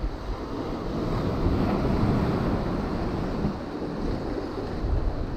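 Ocean surf breaking and washing over shoreline rocks, swelling about a second and a half in, with wind buffeting the microphone.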